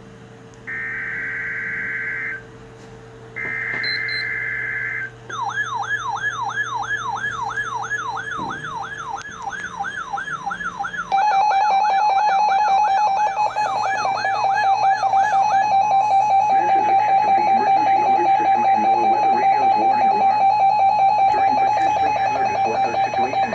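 Emergency Alert System test signals. First come two short buzzy digital data bursts of the SAME header. Then an electronic alert tone warbles up and down over and over. About eleven seconds in, a loud steady attention tone joins it and keeps sounding after the warble stops.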